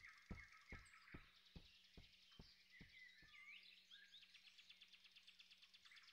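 Very faint forest ambience: birds chirping softly, with a soft regular ticking about twice a second that fades away over the first few seconds.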